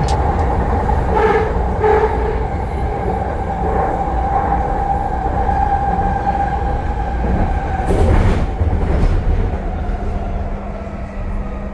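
A moving vehicle running: a steady low rumble with a held whine. There are a few short clicks in the first couple of seconds and a louder swell about eight seconds in.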